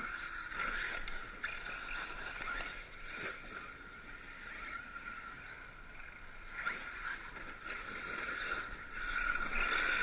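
Radio-controlled 1/8-scale brushless electric buggies running on forest ground: a steady high electric whine with tyres scraping and crunching over leaves and dirt, and a few short knocks.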